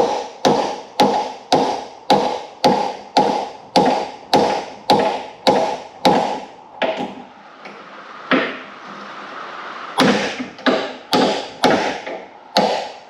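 Steel hammer blows driving a seized door hinge pin out of a Hillman Imp door hinge, each strike ringing metallically. About two blows a second, with a lull of a few seconds after the middle in which only odd strikes land, then steady hammering again.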